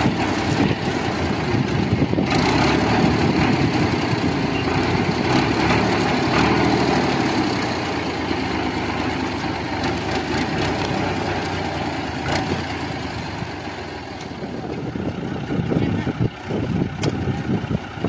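Al-Ghazi Fiat 480 tractor's diesel engine running steadily.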